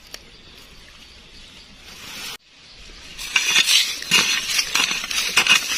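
Digging in loose sandy soil: a dense run of quick scraping and crunching strokes that starts about three seconds in, after a faint hiss and a brief dropout.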